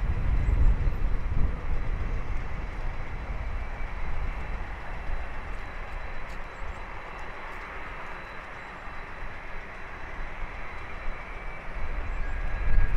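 Airbus A330neo's Rolls-Royce Trent 7000 turbofans at approach power on final approach with the gear down: a steady jet hum that grows louder near the end as the airliner closes in, with low rumble strongest at the start.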